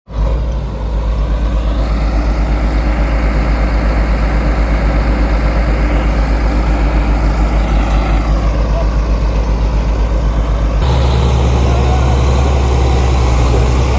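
Heavy diesel engine of a Komatsu D65PX bulldozer running with a steady, regular throb. About eleven seconds in, the sound changes abruptly to a louder, steadier low engine note.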